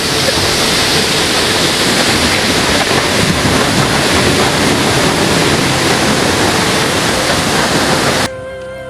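Rain-swollen waterfall: a loud, steady rush of falling water that cuts off suddenly near the end.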